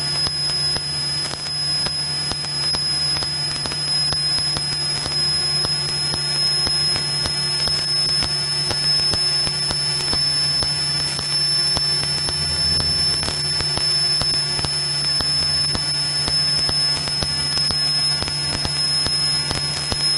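Steady drone of a Piper Cherokee's engine and propeller in cruise flight, heard inside the cockpit, with a steady high-pitched whine and light crackles of static over it.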